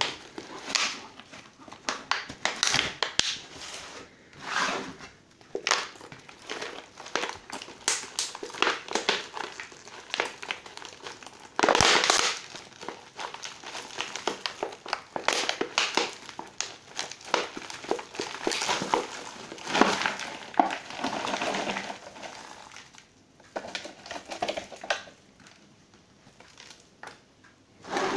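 Thin clear plastic plant pot crinkling and crackling irregularly as it is squeezed and worked to free an orchid's roots and bark potting mix. The loudest burst of crackling comes about halfway through.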